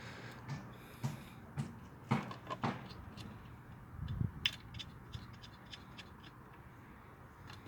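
Scattered clicks, knocks and scrapes of hand tools and metal parts being handled during outboard motor assembly, with a sharper pair of knocks about two seconds in and a dull thump around four seconds in.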